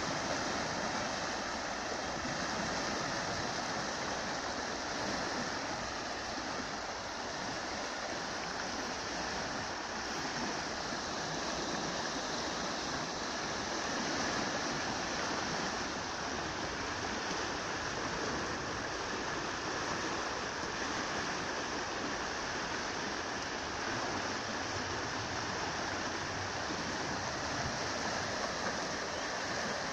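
A river in flood rushing steadily past a low concrete weir, its fast, muddy water churning without a break.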